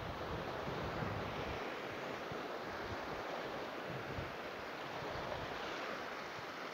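Ocean surf washing over and around shoreline rocks: a steady wash of small breaking waves.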